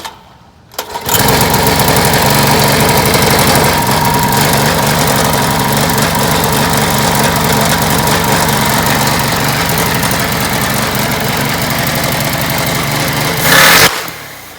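Snapper lawn mower engine, fed nitrous, starts about a second in and runs loud and steady at high speed. Near the end it surges louder for a moment, then cuts off abruptly.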